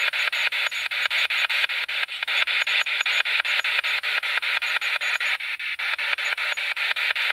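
Spirit box (ITC Research Device) sweeping the FM radio band: a steady hiss of radio static chopped into short pieces many times a second as it steps rapidly from frequency to frequency.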